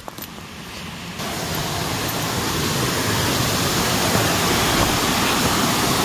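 Waterfall rushing: a steady, even hiss of falling water that comes up sharply about a second in and then grows slowly louder.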